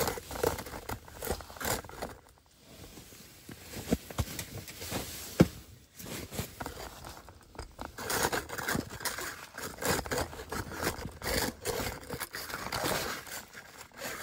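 Rustling, scraping and crunching as someone moves about on snow-covered ice, clothing brushing close to the phone, with scattered clicks and one sharp knock about five seconds in.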